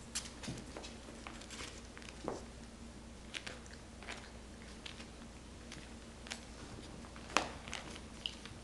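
Puppies scrabbling in and nosing through pellet litter in a plastic tray, giving irregular crunches, rattles and clicks. The sharpest click comes about seven seconds in.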